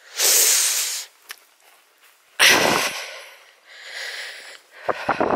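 A walker breathing hard close to the microphone: three loud breathy exhales a second or two apart, the last one softer, with a few short clicks near the end.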